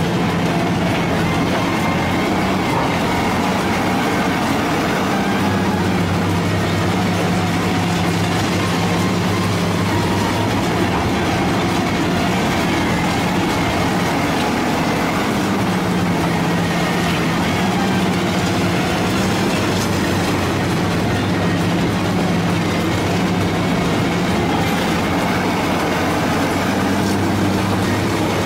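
Lindner Urraco 95 DK mobile shredder running steadily under load as it shreds scrap metal: a steady diesel engine hum that shifts slightly in pitch a few times, over constant grinding and clattering of metal in the shredder and on the discharge conveyor.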